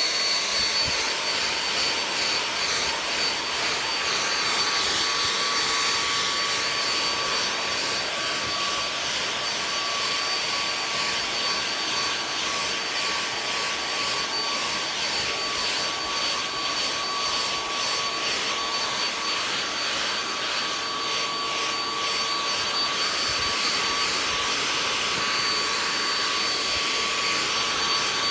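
Handheld hair dryer running steadily: a constant rush of blown air with a high, even motor whine.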